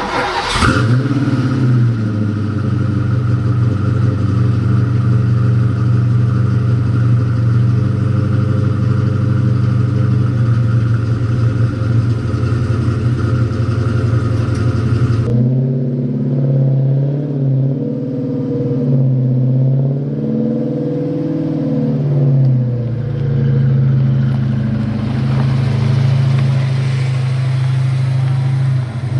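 A 1989 Ford Mustang's engine starting for the first time of the season and running steadily. About halfway through the sound changes, and the engine speed rises and falls several times before settling back to a steady run.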